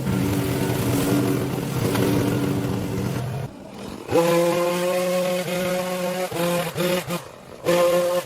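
Small petrol engine of a power yard tool running steadily, dropping off a little after three seconds in. It revs back up about a second later with a higher whine that rises and falls as the throttle is worked on and off.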